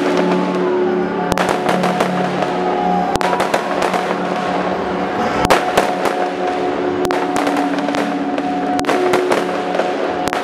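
Fireworks going off in quick succession, with many sharp bangs and crackles, over music with steady held notes.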